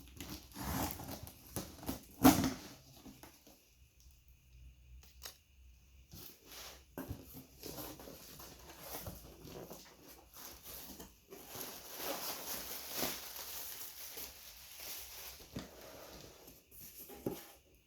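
A box being opened by hand: tearing, with packaging rustling and crinkling and scattered knocks as the contents are handled. There is one sharp knock about two seconds in, and the rustling is densest from about twelve to fifteen seconds.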